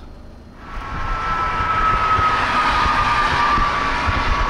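A vehicle coming along the highway: tyre and road noise that starts suddenly under a second in and holds steady, with a thin high tyre whine that slowly falls in pitch as it nears.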